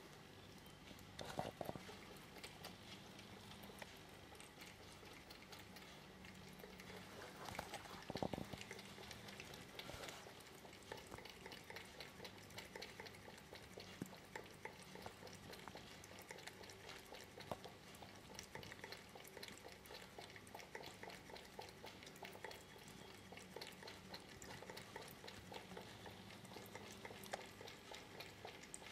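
A cat lapping water from a round floor vase: faint, rapid wet licks of the tongue at the water's surface. There are two louder short bumps, about a second and a half in and again around eight seconds in.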